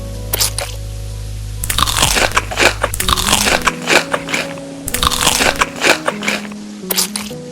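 Crisp food being bitten and chewed close to the microphone, in repeated crunching bursts starting about two seconds in, over background music with a simple melody.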